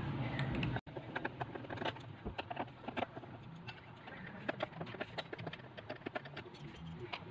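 A louder steady sound breaks off abruptly under a second in, followed by irregular sharp clicks and taps of a screwdriver against the screws and metal chassis inside an opened Bose 321 unit.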